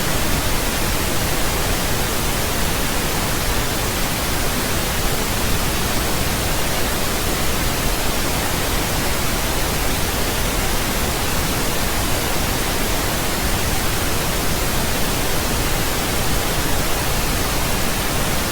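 Steady, unchanging pink noise: an even hiss spread across all pitches, with nothing else in it.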